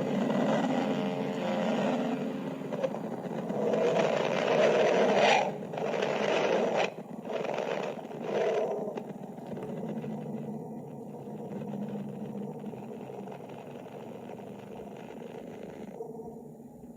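Sonification of Mercury's spacecraft-recorded magnetic-field data: an eerie, windy roaring noise that swells in several loud surges over the first nine seconds, then settles to a quieter, duller rumble.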